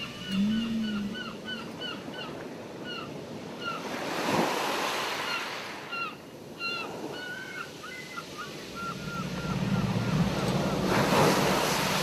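Ocean waves breaking on a beach, with surges about four seconds in and again near the end, under a long series of short gull cries repeating two to three times a second. A low rising-and-falling tone sounds about half a second in, and a low steady tone comes in during the last few seconds: the whale song in the mix.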